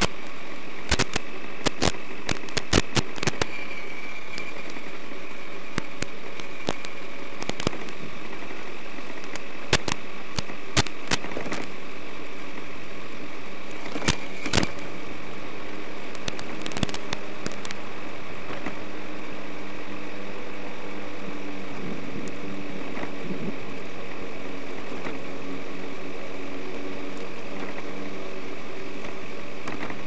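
Axial SCX10 Deadbolt RC crawler driving, its electric motor and geared drivetrain giving a steady high whine, picked up by the truck's onboard microphone. Sharp crackles come and go over the first half.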